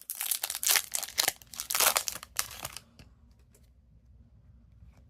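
A hockey card pack's wrapper being torn open and crinkled for about three seconds, then a few light clicks as the cards are handled.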